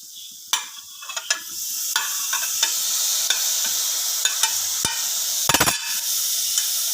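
Onion and spice masala frying in hot oil in a pressure cooker, stirred with a spoon that clicks against the pot. The sizzle gets much louder about two seconds in, as the chopped tomatoes go into the oil.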